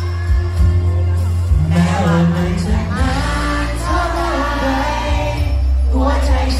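A man singing a pop song live into a microphone over an amplified backing track with a strong, steady bass line.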